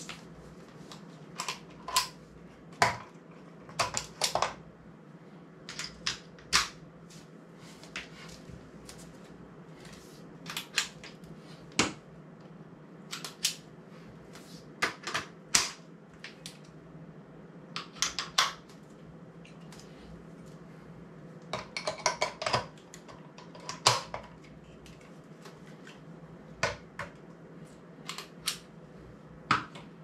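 Metal camera support gear being handled, taken apart and set down on a tile floor: a tripod head, slider and quick-release mounts clicking and clacking at irregular intervals, sometimes several knocks in quick succession, over a steady low hum.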